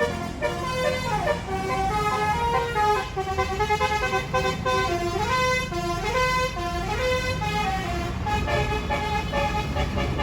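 Bus musical air horn ('telolet basuri') playing a tune: sustained horn notes that step and slide from pitch to pitch, over the low running of a bus engine.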